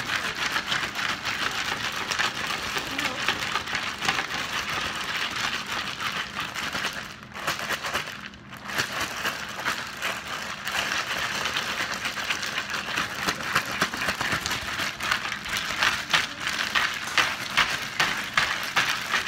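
Zip-top plastic bag of ice and salt shaken hard by hand, the ice rattling and crunching against the crinkling plastic around a sealed inner bag of cream, the hand-churned ice-cream-in-a-bag method. The shaking stops briefly twice near the middle.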